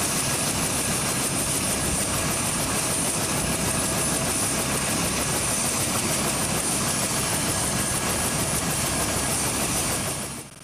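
Helicopter sound effect: a steady turbine and rotor noise with an even, fast blade chop, cutting off suddenly near the end.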